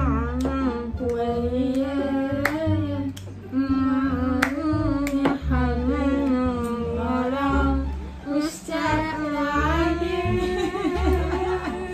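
A woman's voice singing a song over a music accompaniment with a bass line, with sharp claps or beats now and then.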